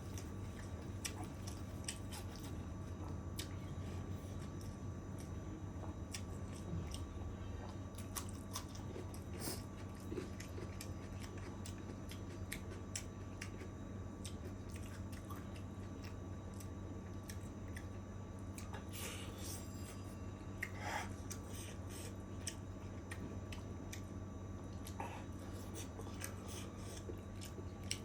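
A person chewing and biting into chicken curry and rice: scattered wet mouth smacks and small clicks, close to the microphone, over a steady low hum.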